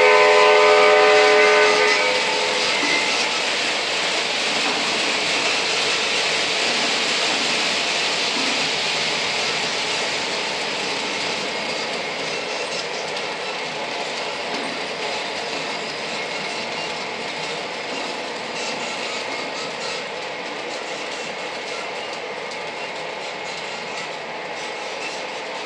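O gauge model freight train rolling past on three-rail track, the wheel noise of its cars fading gradually as it moves away. A model diesel locomotive's electronic horn sounds for the first two seconds.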